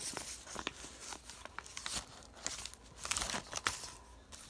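Clear plastic sleeves and celluloid animation cels crinkling and rustling as they are handled, in irregular bursts with sharper crackles, loudest about three seconds in.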